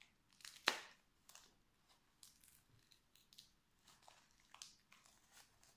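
Bubble wrap crinkling and crackling faintly as it is handled and unwrapped, with one sharper crackle under a second in.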